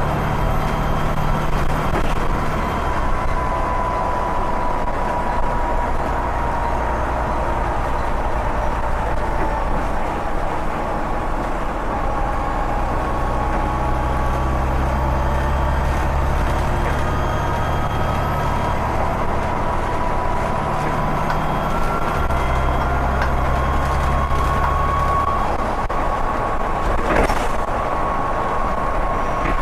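Volvo B7TL bus's turbocharged diesel engine running, with the turbo whistling in thin tones that slowly rise and fall as the bus pulls away and eases off. A brief knock comes near the end.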